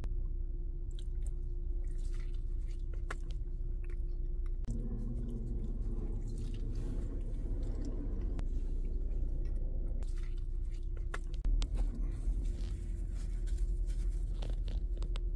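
A person biting into and chewing a slice of pizza close to the microphone, with scattered small clicks, over a steady low hum.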